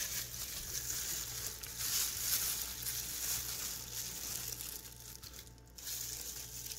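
Thin plastic glove crinkling on a hand as a strawberry is dipped and rolled in powdered gelatin mix in a plastic bowl.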